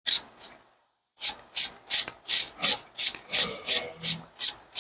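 Stiff brush scrubbing a brake caliper bracket clean of debris in quick back-and-forth strokes: two strokes, a pause of about a second, then a steady run of about three strokes a second.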